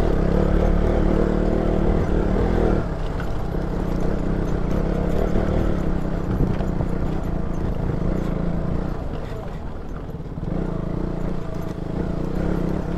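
KTM Duke 200 single-cylinder engine pulling the bike slowly over a rocky dirt trail, with scattered knocks and rattles from the bike over the stones. The engine note is strongest for the first few seconds, eases off, and picks up again near the end.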